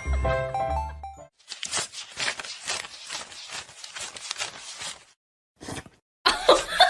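Background music with a heavy bass that stops about a second in. A run of quick, irregular clicks and rustles follows for about four seconds, then a brief silence, and a voice comes in near the end.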